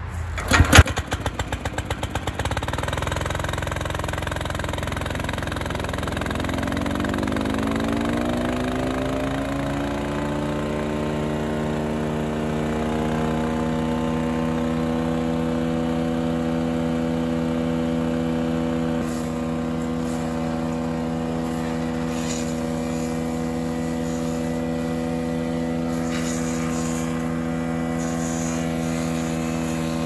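Split-Fire 4090 wood chipper's Honda GXV390 single-cylinder engine pull-started and catching straight away, then running steadily at speed. A rising whine climbs over several seconds and levels off as the chipper's blades come up to speed.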